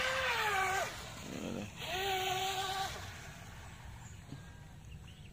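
Electric RC race boat's brushless motor and propeller whining at high throttle in two bursts of about a second each, the pitch sagging as the first burst ends, with quieter running between and after.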